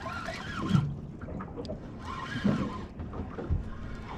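Water slapping against a small boat's hull, with low knocks about a second in, two and a half seconds in and at the end, and two short bursts of high, bending calls over it.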